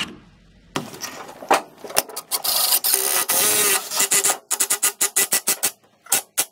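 Cordless power drill boring a hole into a wooden 2x2 furring strip with a twist bit, the motor whining as the bit chews through the wood. It runs in short bursts, holds steadier through the middle, then stutters on and off quickly near the end.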